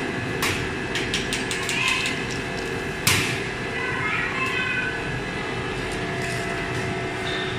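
Steady hum of lipstick-production machinery under a run of sharp metallic clicks and clatter as metal lipstick mold bars and parts are handled on a stainless steel work table, with one louder knock about three seconds in.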